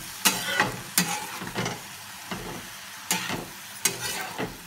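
Flat metal spatula scraping and tossing chopped spinach and potatoes in a metal kadhai, about seven strokes, over a light frying sizzle.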